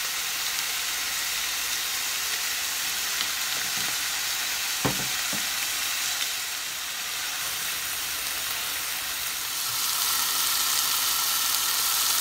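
Slices of beef sizzling steadily in a hot frying pan as they pan-fry, with two light knocks about five seconds in. The sizzle grows a little louder from about ten seconds in.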